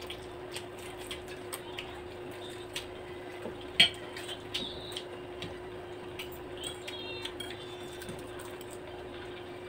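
Eating at a table: scattered small clicks and taps of forks and spoons on plates, with one sharper clack about four seconds in, over a steady low hum.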